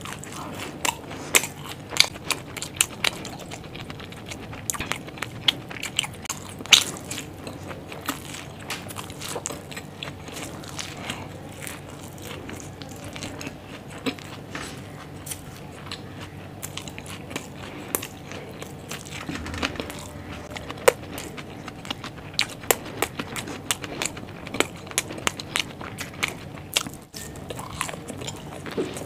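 A person chewing and biting a mouthful of food close to the microphone, with frequent sharp, irregular crunchy clicks.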